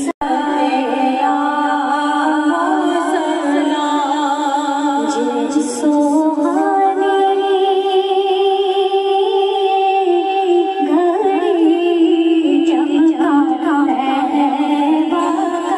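Women's voices singing an unaccompanied devotional hymn together into microphones, with long held notes in the middle.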